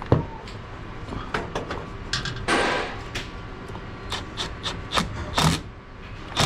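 Hands refitting condensate drain line parts: a string of light clicks and knocks of plastic and metal fittings, with a brief scraping rub about two and a half seconds in.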